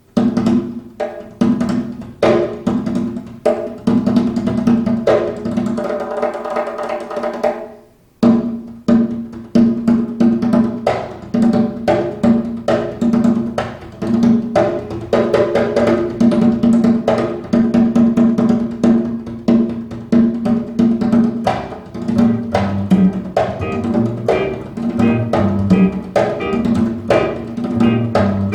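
Recorded music with prominent percussion played back over a hi-fi system of Von Schweikert E3 Mark II loudspeakers driven by an Audionet Watt integrated amplifier. It begins right away, breaks off briefly about eight seconds in, then carries on with a steady rhythm of sharp drum strikes.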